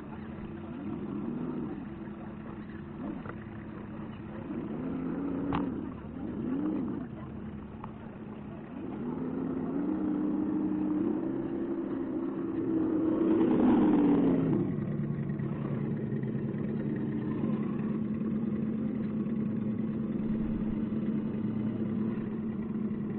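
Motor and drivetrain of a 1:10 scale RC crawler whining, rising and falling in short bursts as the throttle is worked, then in longer pulls that peak about two-thirds of the way through before settling to a steady hum.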